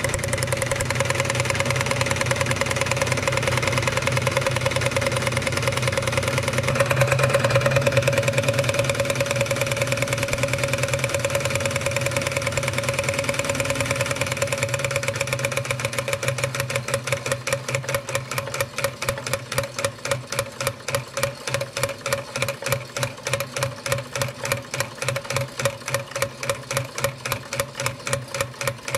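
Wilesco D145 toy steam engine running with its belt-driven workshop models, a fast, steady chuffing and whirring. About halfway through it slows into distinct, evenly spaced puffs of about three a second.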